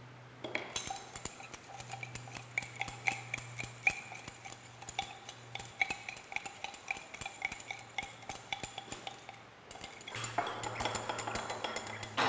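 Glass stirring rod clinking rapidly and unevenly against the inside of a glass beaker while copper sulfate is stirred to dissolve in a little water, each clink ringing briefly. A low steady hum runs underneath, and about ten seconds in a denser, louder sound comes in.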